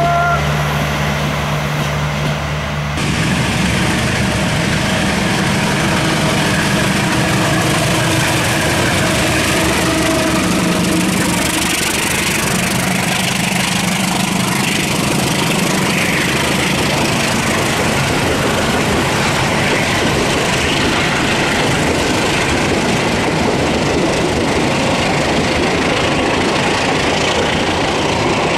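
A diesel-hauled passenger train rolling past close by, with a steady rumble and clatter of coach wheels on the rails. The diesel locomotive works hard pulling away, putting out black exhaust smoke. The sound changes abruptly about three seconds in, as the train comes past at full noise.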